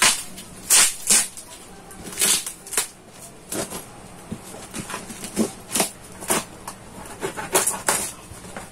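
Packing tape on a cardboard shipping box being slit with a cutter and torn off: a series of short, irregular ripping and scraping sounds with cardboard rustling.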